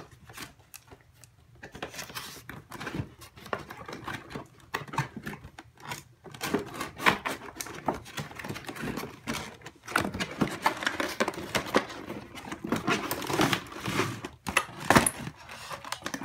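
Toy packaging being opened by hand: cardboard and plastic rustling and crinkling, with many scattered clicks and taps. It grows busier and louder about six seconds in.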